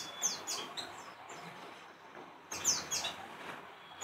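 Pleci (white-eyes) chirping: a quick run of short, high chirps that each slide downward, then another run about two and a half seconds in.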